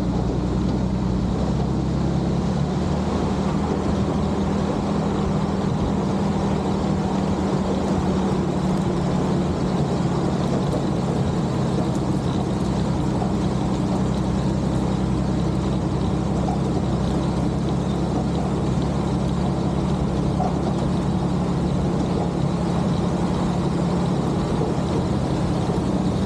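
Dodge M37 military truck's flathead straight-six engine running under load as the truck drives in four-wheel-drive low range, holding a steady drone with no change in pitch.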